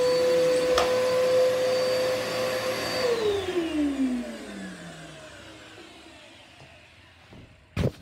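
Bissell Powerforce bagless upright vacuum running with a steady whine, then switched off about three seconds in, its motor winding down in a falling whine that fades away. A brief click comes about a second in, and a sharp knock near the end.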